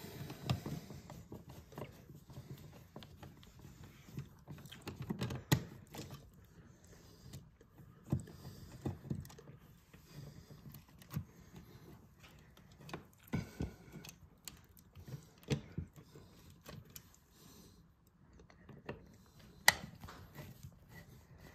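A screwdriver backing out the mounting screws of wall switches, with the switches being handled: scattered small clicks, scrapes and light metallic taps, the sharpest about five seconds in and again near the end.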